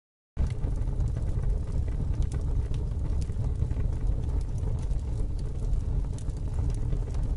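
A motor engine running with a steady low rumble, cutting in suddenly and stopping abruptly.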